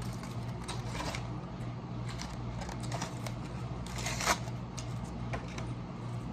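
Aluminum foil crinkling and crackling as a foil-wrapped sandwich is folded and handled, with a louder crackle about four seconds in, over a steady low hum.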